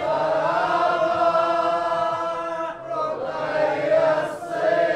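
Several men chanting the refrain of an Arabic Shia lament in chorus, in long drawn-out notes, with a short break about three seconds in before the next phrase.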